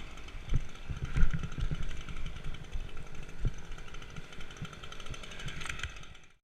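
A chainsaw engine running steadily, with several low thumps over it, the loudest about a second in. It cuts off suddenly at the very end.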